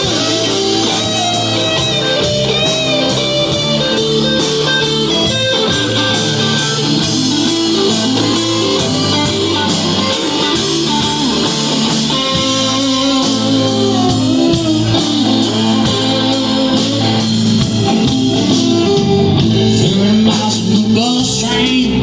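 A live band playing an instrumental break, with guitar leading over bass and a steady drumbeat.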